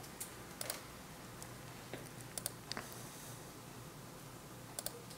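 Quiet room tone with a few faint, scattered clicks and taps.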